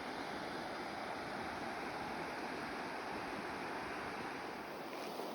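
Steady rushing of a mountain river's headwaters.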